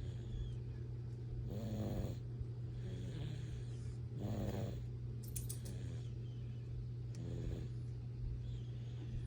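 A sleeping pet snoring, with a snore about every one and a half seconds, over a steady low hum.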